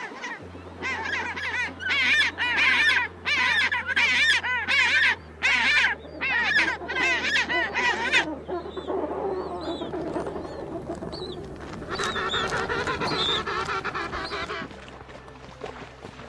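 A flock of birds calling: loud rapid bursts of repeated honking calls for about the first eight seconds, then softer overlapping calls from many birds.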